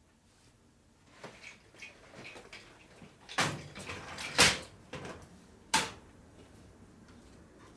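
Rattling and knocking of tool-chest drawers and loose parts as someone searches for a snap ring: small clicks at first, then three sharp knocks, the loudest about four and a half seconds in.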